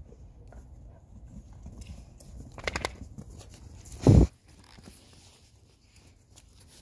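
Dogs scuffling in snow over a frisbee, with a quick flurry of three or four sharp clicks near the three-second mark. About four seconds in comes one loud, dull thump as a dog bumps into the camera.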